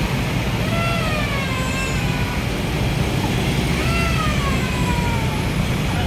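Steady low rumble of engines and road traffic at a construction site beside an expressway. Two long, wavering high-pitched calls rise and fall over it, about a second in and again about four seconds in.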